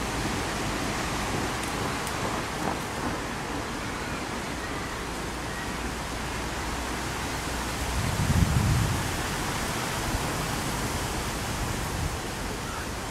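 Steady wind noise outdoors, with a low rumbling buffet of wind on the microphone about two-thirds of the way through.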